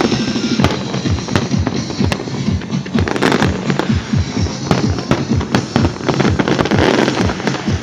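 Aerial fireworks going off in a rapid barrage: sharp bangs and crackles, several a second, with no let-up.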